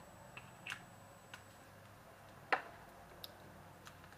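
A few faint, scattered clicks and taps, the loudest about two and a half seconds in, from a gel eyeliner pot and small eyeliner brush being handled.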